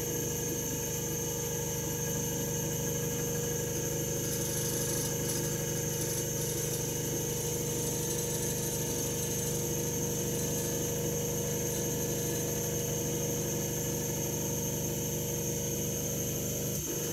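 Stepper motors of an OpenBuilds OX CNC router whining steadily as the Z axis homes, the router head creeping upward. Near the end the tone breaks off and changes as the axis reaches its home position and the next axis starts.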